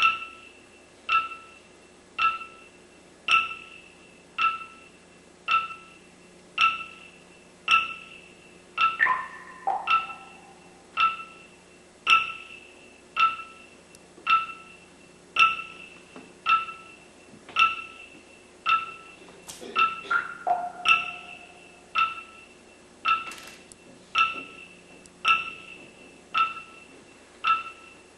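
Music: a single struck, pitched percussion note repeating evenly about once a second, each strike ringing briefly. A short falling run of other notes comes in twice, about a third and about two-thirds of the way through.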